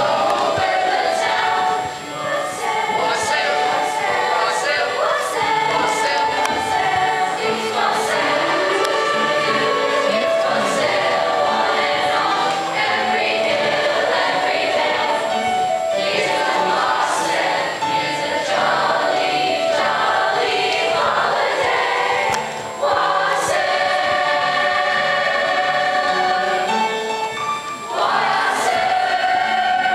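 A youth choir of mostly girls' voices singing together in held, changing chords.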